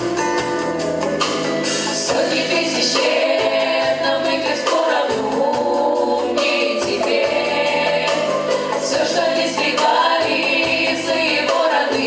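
Pop vocal ensemble singing in harmony over a band backing with a steady beat.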